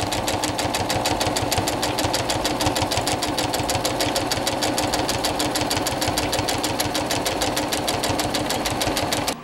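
Brother electric sewing machine stitching a seam through chamois fabric, running at a steady speed with an even, rapid clatter of the needle, several stitches a second, over the motor's hum.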